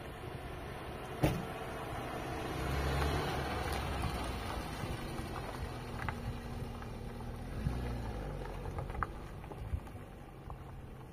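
A car engine running as the car moves slowly on a dirt road, swelling a few seconds in and then fading. A single sharp knock about a second in.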